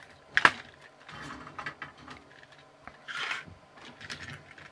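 Small plastic clicks, taps and scrapes from a stripped toy car chassis and its circuit board being handled, with one sharp click about half a second in and two short scratchy rattles later.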